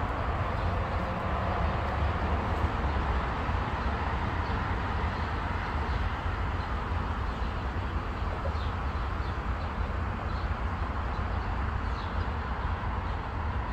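Steady outdoor background: an even hiss over a constant low rumble, with a few faint, short, high bird chirps scattered through it.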